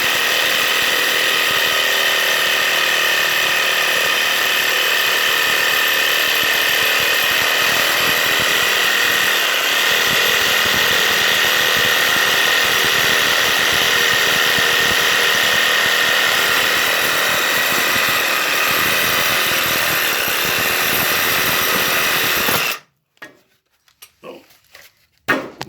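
Electric power cutter cutting through a lead water pipe, running with a steady whine, then cutting off abruptly near the end.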